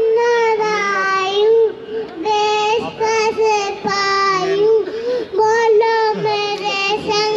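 A child singing a poem unaccompanied, holding long notes at a steady pitch in phrases separated by short breaths.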